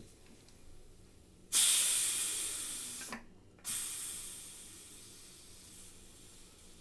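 Aluminium pressure cooker venting steam as its whistle weight is lifted by hand: a sharp hiss about a second and a half in that fades, breaks off briefly, then a second hiss that dies away over a couple of seconds. The remaining pressure is being let out after cooking.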